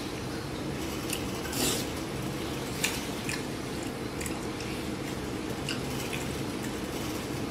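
A person eating soup-soaked pancake with chopsticks from a ceramic bowl: wet chewing, with a few short, sharp clicks of the chopsticks against the bowl over a steady low background hum.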